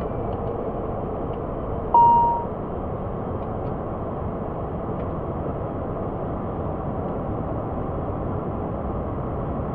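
Steady engine noise inside an ATR 72-600 turboprop's cockpit on the ground. About two seconds in, a single short electronic beep sounds and fades; it is the loudest sound.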